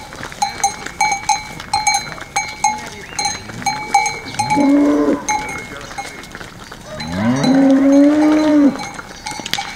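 Cowbells on a walking herd of cattle clanking in a quick, irregular rhythm. A cow moos twice over them: a short moo about halfway through and a longer, louder one near the end.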